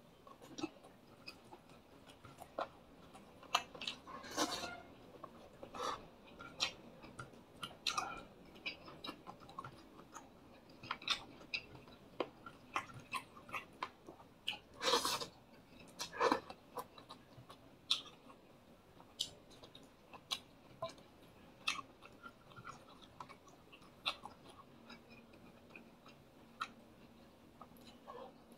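Close-up eating sounds of a man chewing fried squid, fish, chicken and rice with his mouth open: irregular wet smacks and clicks, with a few louder smacks in the middle. A faint steady hum starts near the end.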